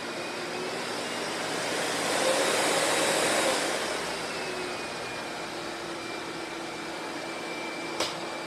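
Sebo Felix upright vacuum cleaner running steadily. About two seconds in its motor rises in pitch and gets louder for a second or so, then settles back down. A single sharp click comes near the end.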